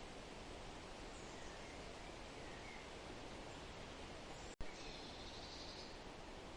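Forest ambience: a steady, faint rustling hiss with a few distant bird calls, including soft chirps and a short buzzy trill about two-thirds through. Just before the trill the sound breaks off for a split second and comes back with a click.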